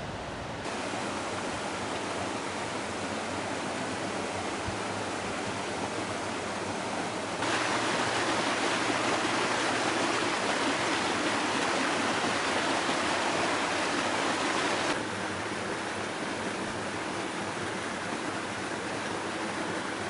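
Steady rushing of a nearby waterfall, a constant noise of falling water that is noticeably louder between about 7 and 15 seconds in.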